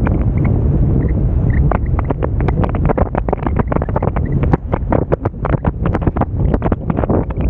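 Airflow buffeting the microphone in flight under a paraglider: a loud, gusty rumble with frequent crackles, which grow denser about two seconds in.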